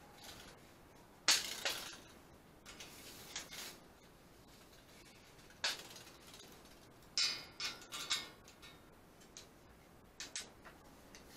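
Steel tape measure handled against a bent metal-tube frame: a handful of sharp clicks and clinks, with a cluster of rattling, ringing clinks around seven to eight seconds in.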